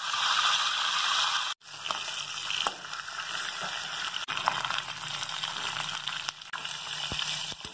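Fish head pieces sizzling as they fry in hot mustard oil in a kadai: a steady frying hiss, louder at first, that breaks off for an instant about one and a half seconds in, then carries on with a few small pops.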